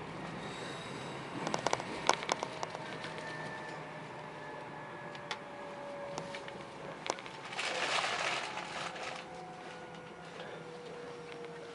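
Meitetsu μSKY electric train heard from inside the car: a steady low running hum with a thin motor whine that falls slowly in pitch as the train slows. A quick run of clicks comes about one and a half to two and a half seconds in, and a short rush of noise about eight seconds in.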